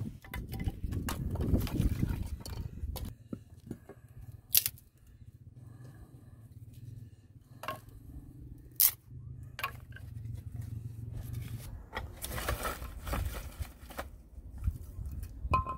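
Split dry kindling being handled: a knife scraping along a wooden stick and sticks knocking and clattering together as they are gathered up, with a few sharp wooden knocks.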